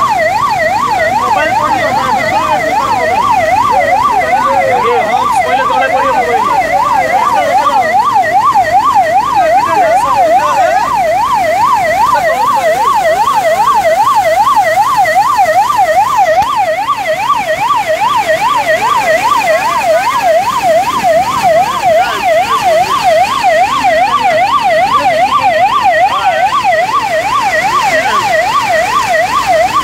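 Ambulance siren wailing in a fast, even up-and-down sweep, about two cycles a second, loud and unbroken throughout.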